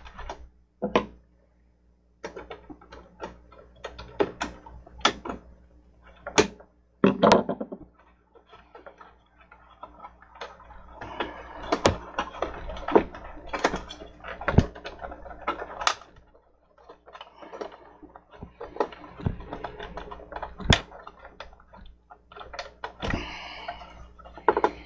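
Irregular clicks, taps and short scrapes of hands and small tools working the power-cord wire loose inside a plastic CD player chassis.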